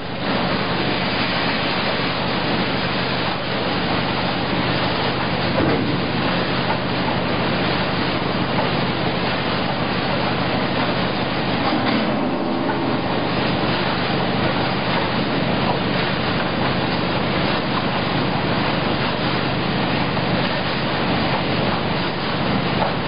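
Industrial pea-frying production line running: a steady, even machine noise with a constant low hum from its motors.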